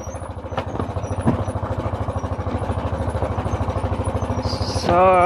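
Motorcycle engine running at low speed with a fast, even pulsing beat while riding over a rough cobblestone track. Two sharp knocks come in the first second and a half.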